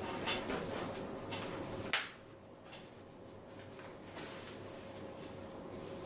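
Hands rubbing and kneading skin during a massage, with one sharp click about two seconds in, after which the rubbing is fainter.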